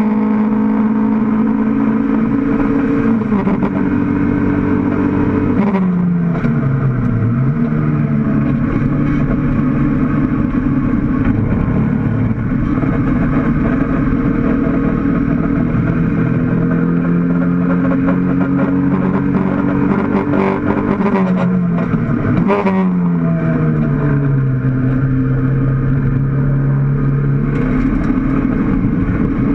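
Mk1 Toyota MR2 race car's engine heard from inside the cockpit at racing speed: its revs fall sharply twice and climb slowly and steadily in between, with a few short clunks.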